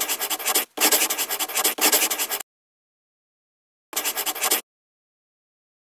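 Pen scratching across paper in quick strokes, as when writing by hand. It runs for about two and a half seconds with a brief break, then comes again in one shorter burst about four seconds in.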